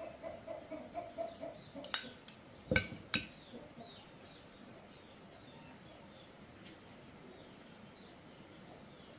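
A chicken clucking in a quick, even run of calls for the first two seconds or so, followed by three sharp knocks; after that only faint high chirping remains.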